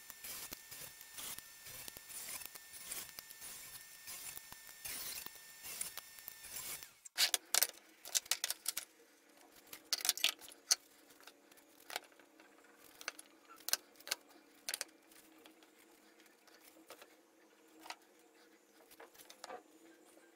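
Thin wooden slats handled by hand: scraping and rubbing with many small clicks at first, then, from about seven seconds in, separate sharp clicks and knocks as slats are set down and pushed together on a plywood board, over a steady low hum.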